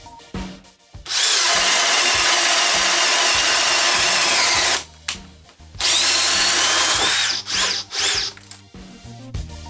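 Metabo SB 18 LTX BL I brushless cordless drill in speed 2 boring a 1 5/8-inch Irwin Speedbor spade bit into a thick softwood beam. The motor whine wavers under load over the tearing of wood chips for about four seconds, then stops. It runs again for about a second, followed by a few short bursts near the end.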